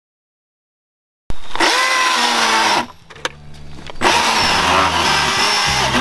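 Milwaukee M18 battery-powered chainsaw cutting lengthwise through a log along a lumber guide, its motor whine dropping in pitch in the cut. It starts suddenly about a second in, falls away briefly near three seconds, and runs loud again from about four seconds in.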